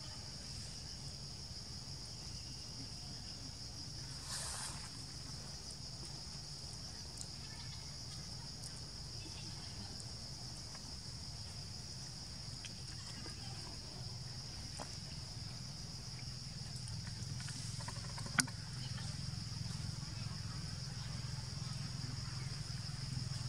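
Insects droning steadily at a high, even pitch over a low steady hum. A brief rustle about four seconds in and a sharp click about eighteen seconds in.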